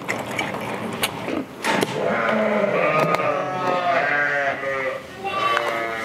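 Karacabey Merino sheep and lambs bleating, several wavering calls overlapping from about two seconds in, with another call near the end. A few sharp clicks come before the calls.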